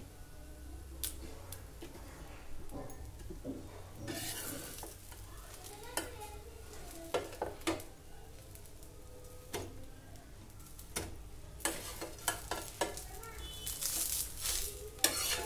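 Steel spatula scraping and clicking against a hot tawa as a dosa is lifted off and folded, over light sizzling. The scrapes and clicks come in irregular clusters, busier in the second half.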